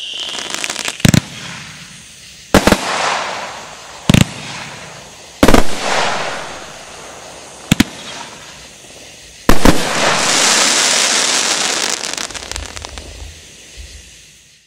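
Brothers 'Pearly Gates' 29-shot 500-gram fireworks cake firing: six sharp bangs spaced one to two seconds apart, each followed by a trailing hiss, and a longer hiss after the last bang that fades away near the end.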